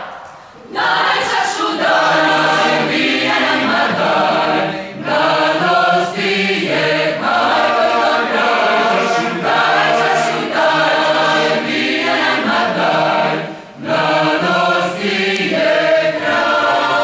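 Mixed choir of women's and men's voices singing together, coming in about a second in and carrying on in phrases, with short breaks between them.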